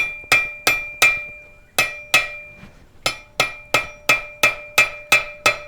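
Hand hammer striking hot steel stock on an anvil, about three blows a second in three runs with short pauses between. The anvil rings after each strike as the thin pendant handle is forged down.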